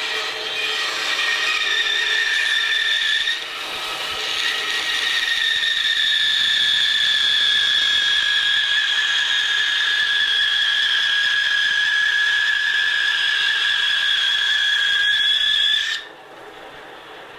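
Bandsaw with a 1/4-inch blade cutting through a wooden cabriole leg blank, giving a steady high whine. It dips briefly about three seconds in, then stops abruptly near the end as the cut ends.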